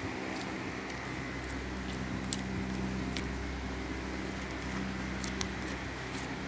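Pink glitter slime being squeezed and poked by fingers, giving soft, irregular sticky clicks and pops. A steady low hum runs underneath.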